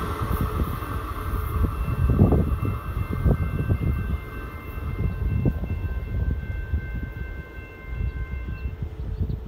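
A passenger train rolling away into the distance, its low rumble gradually fading. A faint steady high ringing of several notes holds for most of the time and stops near the end.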